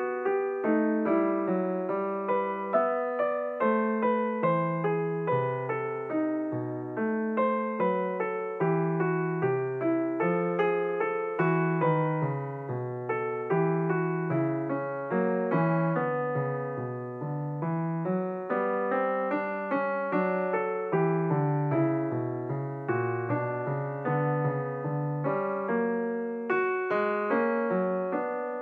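Piano music, a minuet: a melody over lower notes, each note struck and then fading.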